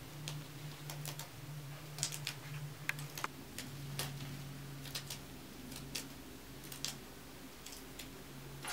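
Fresh green beans being snapped by hand: crisp, irregular clicks and snaps, about one or two a second, with a sharper snap near the end. A faint low hum sits underneath.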